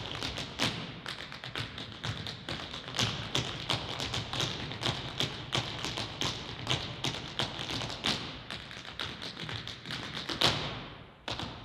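African-style percussion: a fast, steady run of sharp drum or stick strikes, several a second. The loudest strike, with a ringing tail, comes a second before the end, followed by a short pause.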